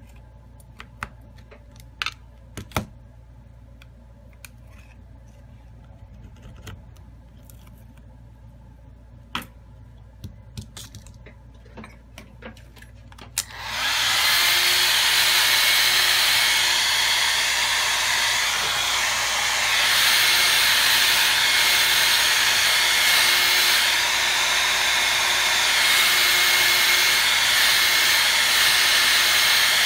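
A few small clicks and taps of plastic and metal parts being handled, then about halfway through a handheld heat gun switches on and blows steadily as it is swept over the phone's cracked screen, heating it to soften the display adhesive before prying.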